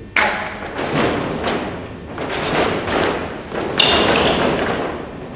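A group of fencers doing footwork drills in unison, their shoes stamping and thudding on the hall floor about twice a second, with a louder stamp about four seconds in.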